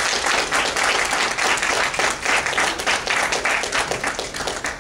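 Congregation applauding, a dense round of many hands clapping that dies away right at the end.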